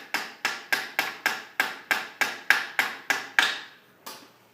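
Steady hammer blows, about three a second, knocking a pull-start kit part on a motorized bike engine into position past a washer that gets in the way. The blows stop about three and a half seconds in, and one last blow comes near the end.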